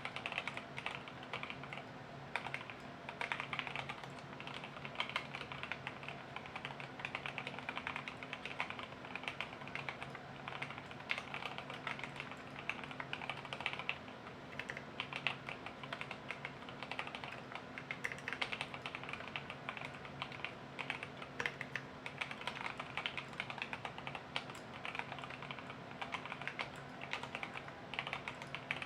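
Fast, continuous typing on a custom mechanical keyboard, an Idobao ID67 with hand-lubed Durock linear switches, lubed stabilizers and XDA-profile keycaps: a dense, unbroken run of key strokes. A faint steady hum sits underneath.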